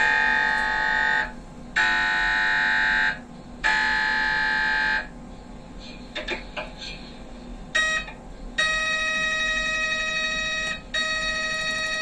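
MRI scanner gradient coils sounding during the calibration scan. Three loud, buzzing, high-pitched tones of about a second and a half each come with short gaps between them. After a pause with a few clicks, a brief tone and then two longer tones at a different pitch follow.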